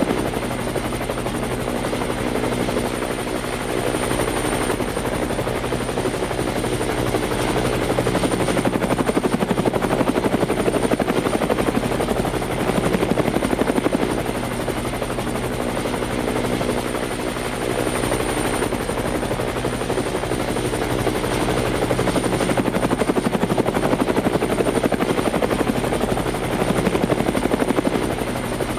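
Quadcopter drone's motors and propellers buzzing steadily, heard from the drone's own camera, with a thin high whine over the hum and small swells in loudness as it manoeuvres.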